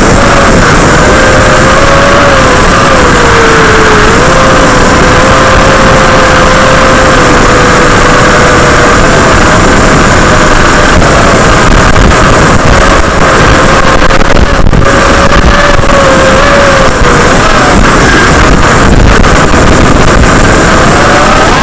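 FPV quadcopter's 3000KV brushless motors and propellers whining in flight, the pitch wavering up and down with throttle, over a heavy rush of wind noise on the microphone.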